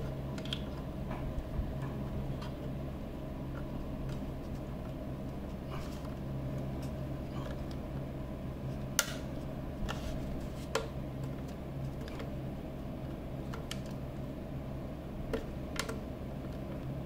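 Scattered small clicks and taps of wires and crimped spade connectors being handled and pushed onto terminal tabs inside a metal chassis, over a steady low hum.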